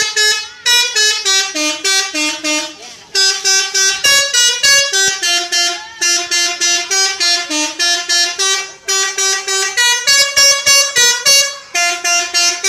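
Telolet horn, the multi-tone musical horn fitted to Indonesian buses and cars, playing a quick tune of short notes, about four a second, in phrases with brief breaks between them.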